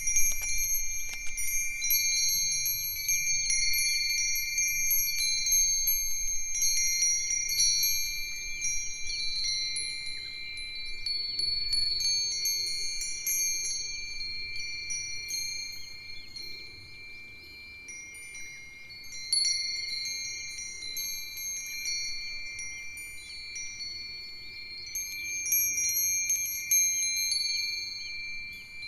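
A set of five Japanese fūrin wind chimes ringing together in the breeze: Myochin iron fire-tong rods, Nambu cast-iron bells, a Nousaku chime and a sanukite stone chime. Long, clear ringing tones run on underneath a stream of bright high strikes, thinning out about halfway and picking up again after that, over a faint low rumble of wind.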